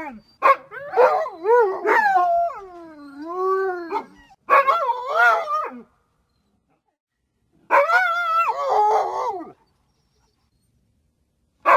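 Small dog yowling: a run of wavering, gliding howls and whines for the first few seconds, then two shorter yowls each followed by complete silence, with another starting at the very end.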